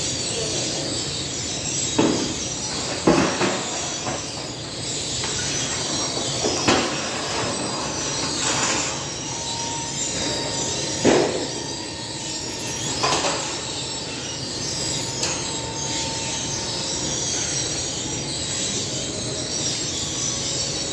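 Steady machine noise from a bakery's flatbread conveyor oven and its extraction hood, with a few sharp metal clanks and knocks spread through and a faint high squeal now and then.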